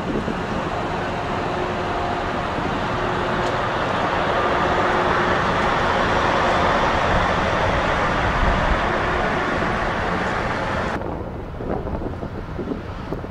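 Steady engine noise of the survey tug ASTRA-G running close by, a broad drone with a low rumble and faint steady tones. Near the end it cuts off abruptly to gusts of wind on the microphone.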